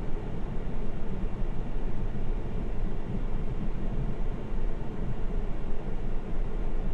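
A vehicle engine running steadily: a constant low rumble with an even hiss over it.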